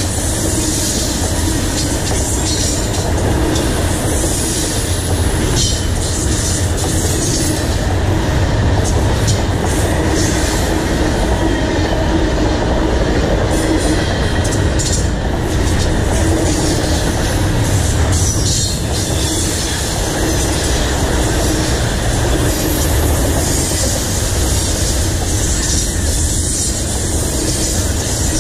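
Double-stack intermodal freight train's well cars rolling past close by: a steady, loud rumble of steel wheels on rail, with bursts of clatter around the middle.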